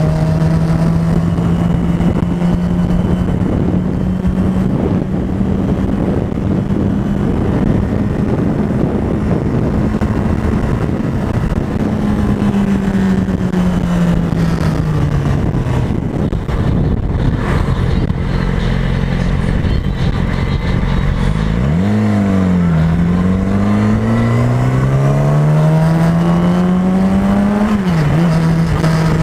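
2007 Yamaha R6's inline-four through a Leo Vince aftermarket exhaust, heard from the bike while riding, over steady wind rush. The engine holds a steady note, eases off a little before halfway, then a little past two-thirds of the way through dips sharply and climbs in a long rising pull of revs that drops off suddenly near the end, as at a gear change.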